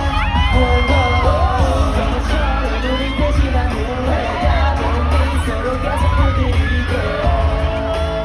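Korean pop song played loud through a concert sound system: heavy bass beat under sung, gliding vocal lines, with some crowd noise.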